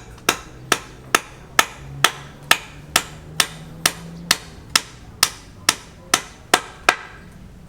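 Hammer blows at a steady pace of about two a second, some sixteen in a row, each with a brief ringing tail; they stop shortly before the end.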